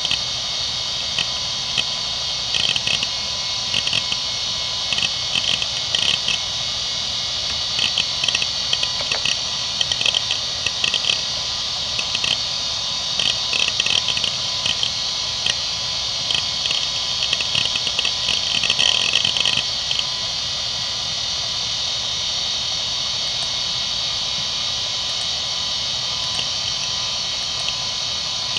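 A 1994 IBM Travelstar DHAA-2405 2.5-inch hard drive spins with a steady high-pitched whir while its heads seek in repeated bursts of rapid clicking chatter, reading Windows 95 as it boots. The seeking stops for several seconds in the last third, then a final burst of chatter comes right at the end.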